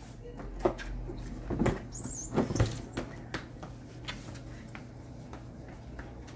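Scattered light knocks and taps from a toddler's feet and hands on a plastic play slide and a concrete patio as the child climbs and runs, the loudest thumps about two and a half seconds in, with a brief high squeak just before them.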